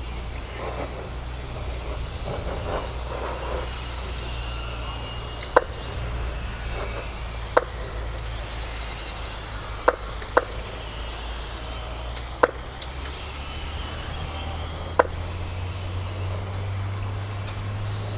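Electric mini RC cars racing: faint high motor whine that swells and fades over a steady low hum, with about seven sharp clicks or knocks scattered through.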